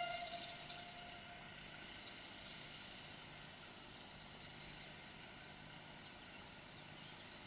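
The tail of a steam locomotive's multi-tone whistle dies away in the first second or so, leaving a steady soft hiss of escaping steam with a faint low hum underneath.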